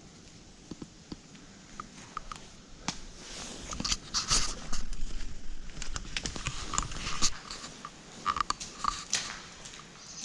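Footsteps crunching and squelching on a wet, muddy, stony track: irregular steps, loudest in the middle.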